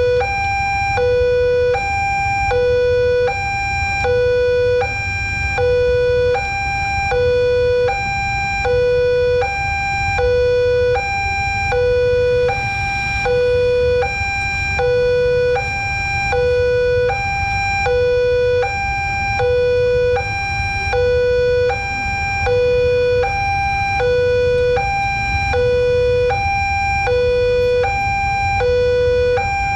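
Railway level-crossing warning siren sounding continuously as a two-tone hi-lo wail. It alternates between a louder lower tone and a higher tone, completing about one low-high cycle every second, as a warning that a train is coming.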